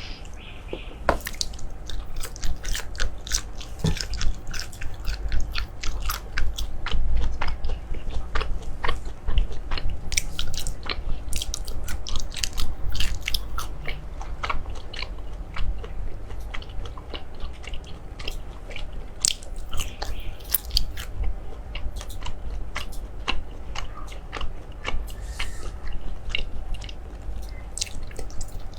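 Close-miked chewing and biting of crisp food, a fast irregular stream of sharp crunches throughout.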